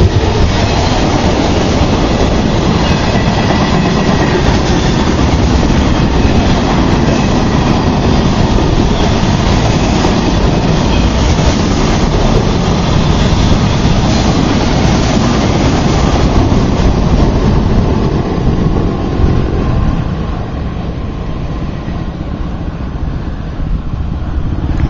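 Union Pacific freight train's cars rolling past on the rails, a loud steady rumble of wheels on track that dies away near the end as the last car passes.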